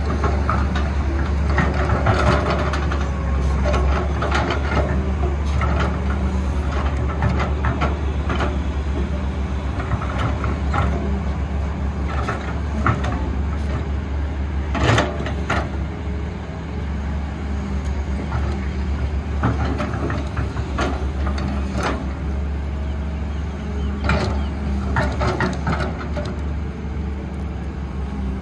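Heavy diesel earthmoving machinery (excavator and dump truck) running steadily with a low drone, with scattered clanks and knocks throughout and a sharp one about halfway through.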